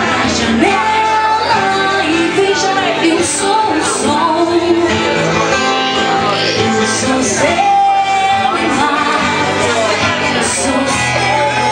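Live acoustic band music: a woman singing a slow melody into a microphone over two strummed acoustic guitars, with several long held notes.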